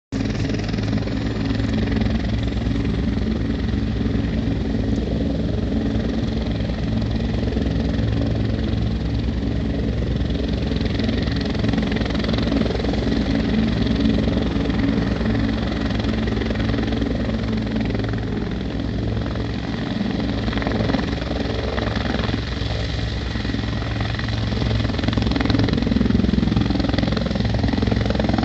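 Helicopter running on the pad, its turbine and rotor making a steady beating sound. It grows louder over the last few seconds as the helicopter lifts off.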